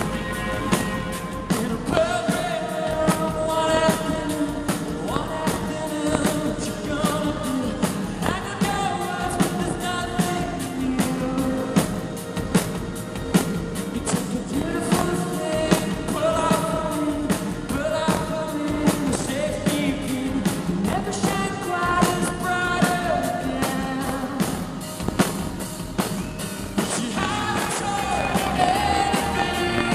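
Live rock band playing: a male lead vocal sings over electric guitar, keyboards and a steady drum beat, heard from the audience through a camera microphone. The singing comes in about two seconds in.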